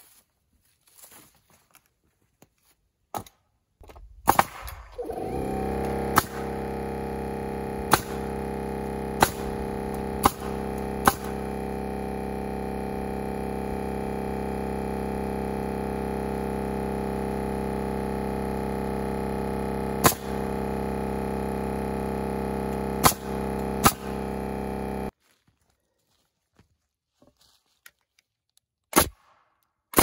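Pneumatic framing nailer driving nails into lumber, about a dozen sharp shots spread through. A portable air compressor starts a few seconds in, rising briefly in pitch, then runs steadily for about twenty seconds refilling its tank and cuts off suddenly.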